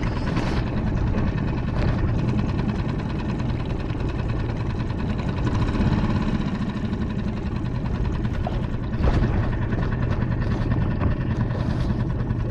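A steady low engine drone with a continuous hum, swelling briefly a couple of times.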